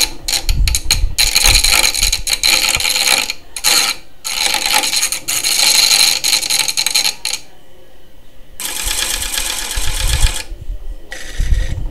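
Screwdriver tip held against the inside rim of a fast-spinning fan-rotor flywheel, scraping with a harsh, steady buzz. The scraping comes in spells of a few seconds, broken by short gaps.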